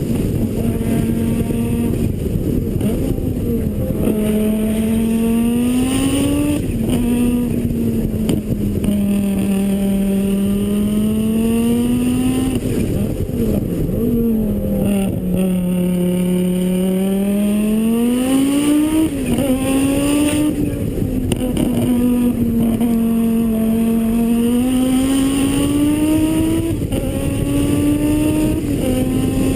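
Rally car engine running hard, its pitch climbing and dropping repeatedly as it accelerates, shifts and eases off, with several sharp falls in pitch.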